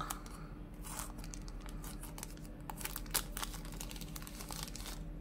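Thin plastic wrapper crinkling and crackling as it is pulled open and peeled off a wireless earbuds charging case, a run of small irregular crackles.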